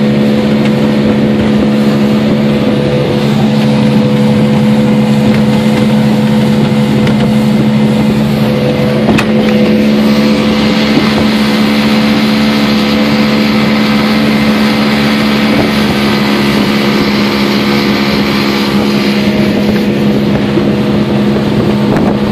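Outboard motor running steadily at cruising speed as the boat planes across choppy water, under a constant rush of wind and water. For several seconds in the middle the motor's note and the hiss of the churning wake grow louder.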